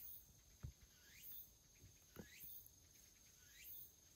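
Near silence: faint room tone with a steady high whine. A faint rising chirp repeats about every second and a quarter, and there are two soft thumps, one under a second in and one about two seconds in.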